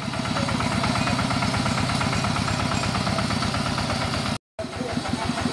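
Single-cylinder diesel engine of a two-wheel walking tractor running with an even, regular pulse. The sound drops out for a moment about four and a half seconds in.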